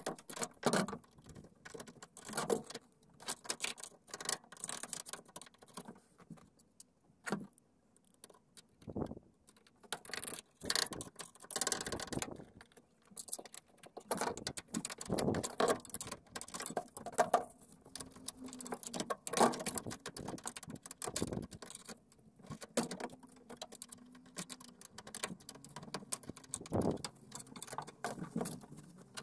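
Irregular clinks, knocks and rattles of metal hand tools and an angle grinder being picked up and set down on a car's bare metal floor pan.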